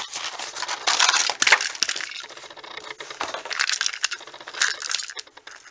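A toy's retail packaging being opened and handled by hand: irregular rustling with sharp little clicks, loudest about a second and a half in and again near the end.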